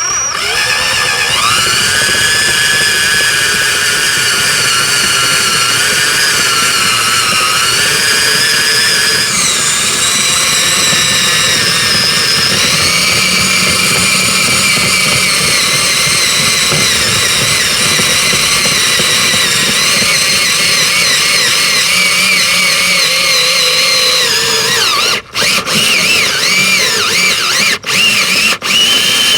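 Electric drill with a greased bit drilling out a blown spark plug hole in a Ford Triton cylinder head, its motor whine running continuously and shifting in pitch as the load changes. Near the end the trigger is released and squeezed again several times in quick short stops.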